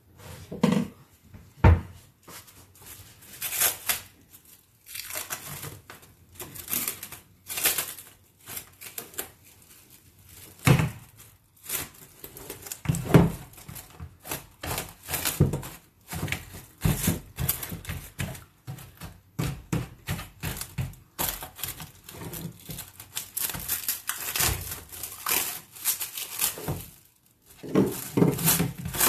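Plastic cling film being pulled from its roll and stretched crinkling over a plastic bowl, in irregular crackling bursts with a few knocks.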